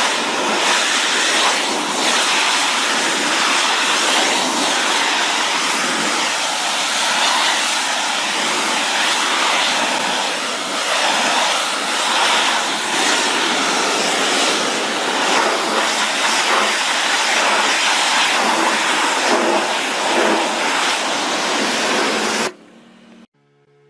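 High-pressure washer jet spraying hard onto stone, a loud steady hiss with small surges as the spray moves. It cuts off abruptly near the end.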